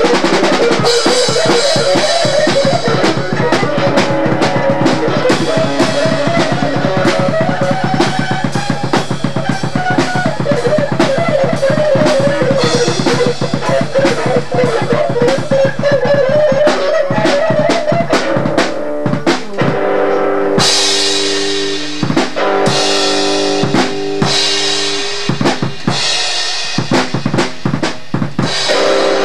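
Loud, rough rock jam on drum kit and guitar. The drums are played fast and busy under a wandering melodic line. About two-thirds of the way in, the drumming breaks up into scattered hits while long chords ring out.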